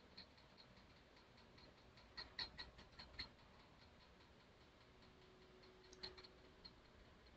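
Near-silent room tone with faint, even ticking about two to three times a second, and two short flurries of computer mouse clicks, about two seconds in and again about six seconds in.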